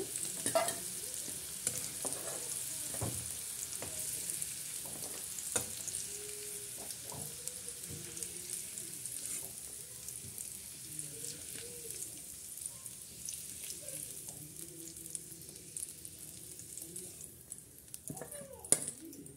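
Oil and vegetables sizzling in a kadai while a metal spatula scrapes and taps against the pan, scooping out the fried vegetables. The sizzle dies down near the end as the pan empties.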